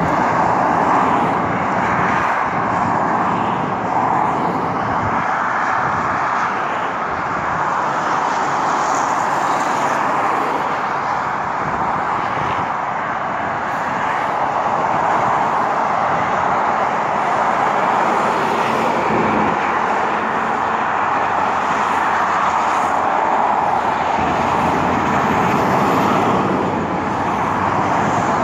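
Multi-lane freeway traffic: a steady roar of tyres and engines from many cars and trucks, gently swelling and easing as vehicles pass below.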